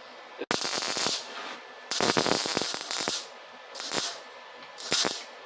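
MIG welder tack-welding stainless steel: four short bursts of arc crackle, the first about half a second in and the longest a little over a second near the middle.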